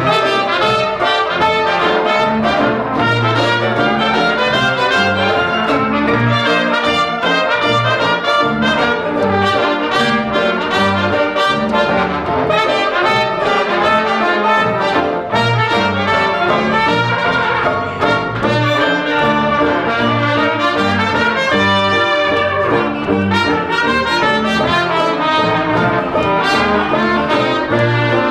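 A traditional New Orleans-style jazz band playing an up-tempo tune live: clarinet, cornet and trombone lines together over string bass, banjo and piano, with a steady bass note on each beat.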